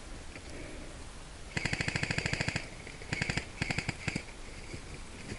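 Airsoft gun firing on full auto in three bursts of rapid, evenly spaced shots: a burst of about a second, then two short bursts.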